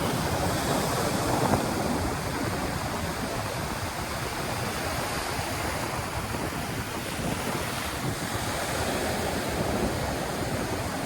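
Surf washing onto a sandy beach, a steady rush of breaking waves, with wind buffeting the microphone.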